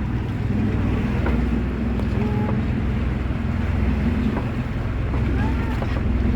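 Tour boat's engine running at a steady drone, with wind buffeting the microphone and water rushing past the hull.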